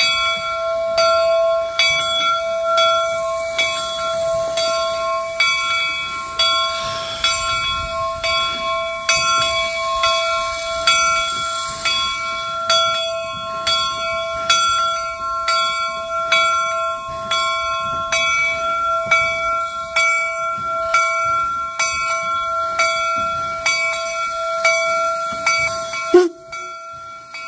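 Steam locomotive bell on the replica Central Pacific No. 60 Jupiter ringing steadily, about three strokes every two seconds, as the engine rolls in. A hiss rises under it for a few seconds in the middle, and a sharp knock about 26 seconds in ends the ringing.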